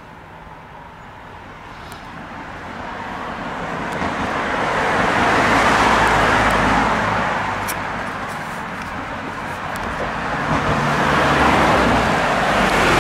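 Road traffic passing close by: a car's tyre and engine noise swells to a peak about six seconds in and fades, then a second vehicle swells past near the end.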